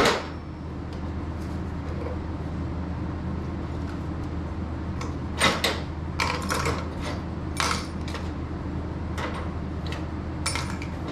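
Small scrap metal parts from a dismantled water heater pressure relief valve (brass, copper and steel pieces) clinking as they are handled and set down: one sharp clink at the start, then a scattered run of clinks through the rest.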